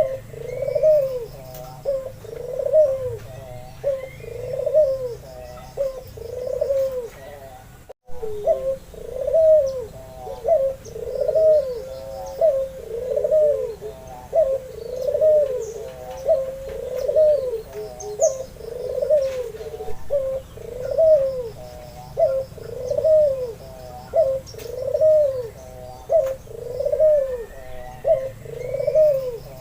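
White albino Barbary dove (puter) cooing over and over, one rising-and-falling coo about every second in a steady rhythm, broken briefly about eight seconds in.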